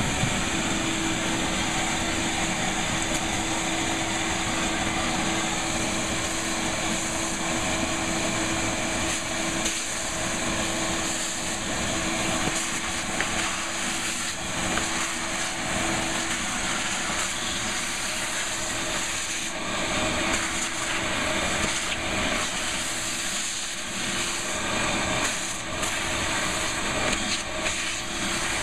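Vacuum running steadily, its hose drawing cutting debris off the edges of a freshly routed opening in a panel, with a steady hum under the hiss.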